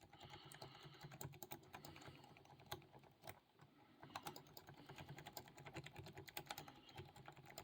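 Faint, rapid, irregular clicking and scratching of a lock-pick rake being rocked in a 50 mm Jasafe padlock's keyway, with the pins and tension wrench ticking. It pauses briefly about midway.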